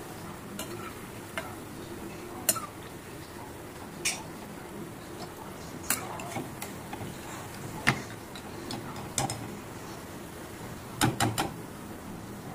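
Onion pakoras deep-frying in hot oil in a steel kadai: a steady sizzle, with a sharp clink of a steel slotted spoon against the pan every second or two as they are turned. A quick run of three clinks comes near the end.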